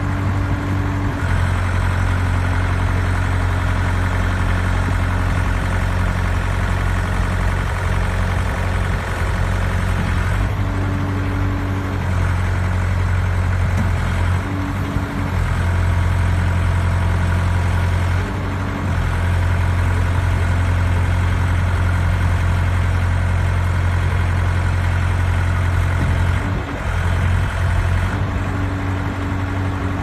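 Wheeled skid steer loader's engine running steadily as the machine drives and works its loader arms. Its note shifts several times as the load changes.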